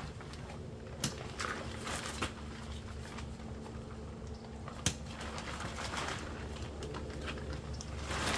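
A few sharp clicks and knocks, with light rustling, as shock-corded tent poles and tent fabric are handled, over a steady low hum.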